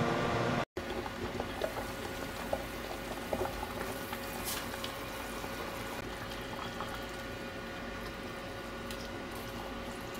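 Broth with pork belly simmering in a stainless steel pan: steady bubbling with many small pops. A faint steady hum runs under it, and an abrupt edit cut falls about a second in.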